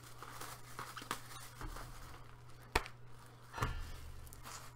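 Trading-card packaging being handled: the crinkle and rustle of wrapped hockey card packs and box, with two sharp taps about three and three-and-a-half seconds in.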